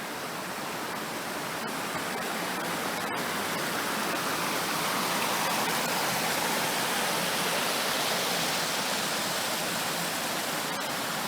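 Waterfall rushing steadily, growing a little louder partway through.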